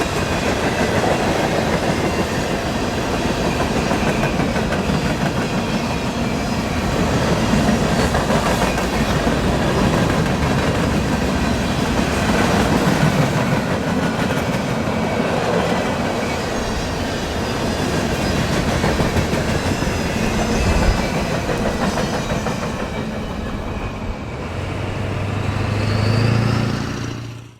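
Freight train cars rolling past, with steel wheels clattering over the rail joints. A short rising squeal comes near the end, and the sound cuts off suddenly.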